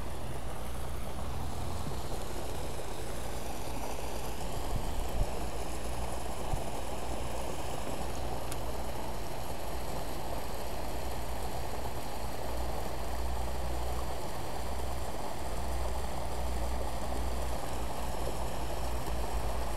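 Steady rush of running water in a shallow concrete-lined channel, with a low rumble underneath.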